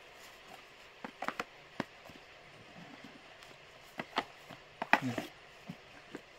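Cardboard gift boxes being handled and set down on a counter: scattered light taps and knocks, a cluster about a second in and another around four to five seconds in.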